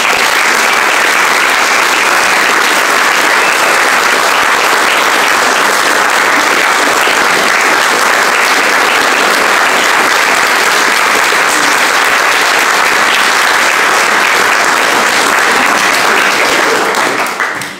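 An audience applauding, steady and dense, dying away near the end.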